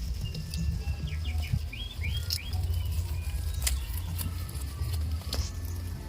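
Small birds chirping in a quick run of short calls through the first half, over a steady low rumble, with a few sharp clicks.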